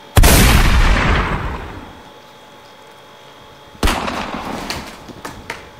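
Two shotgun blasts about three and a half seconds apart, each a sudden bang with a long fading echo; the second is quieter and is followed by a few light clicks.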